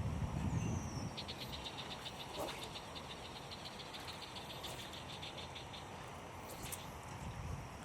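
A rapid, high-pitched pulsed trill of about seven pulses a second from a small animal, lasting roughly four seconds, over a low wind-like rumble in the first second.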